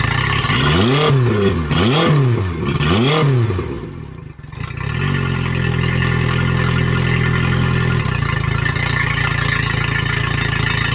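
2011 Yamaha four-stroke 50 hp outboard running on a flushing hose, idling and then revved up and back down three times in quick succession; it dips briefly about four seconds in and settles back into a steady idle. This is the smooth, normal running sound of a healthy nine-year-old engine.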